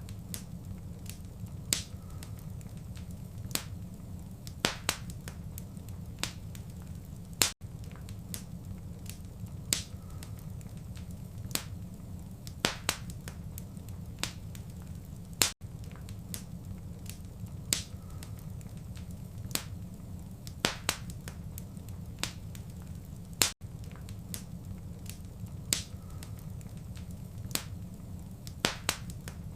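Wood fire crackling: irregular sharp pops and snaps over a steady low rumble. A brief dropout comes about every eight seconds, where the recording loops.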